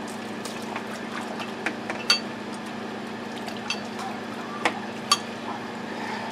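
Water running and splashing as a rust-cleaned steel vise part is rinsed off on a wet wooden board, with a few sharp clicks, the loudest about two and five seconds in. A steady low hum runs underneath.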